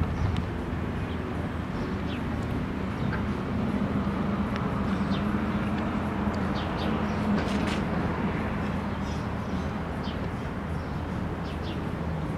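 Outdoor background noise: a steady low hum with scattered short, faint high chirps.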